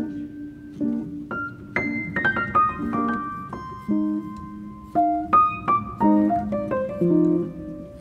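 Background piano music: a melody of struck notes, some in quick runs, over lower held notes.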